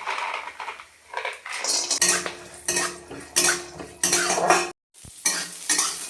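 A metal spoon clinks and scrapes against a kadai as it is stirred, with repeated clatters of kitchen utensils. The sound cuts out abruptly for a moment shortly before the end.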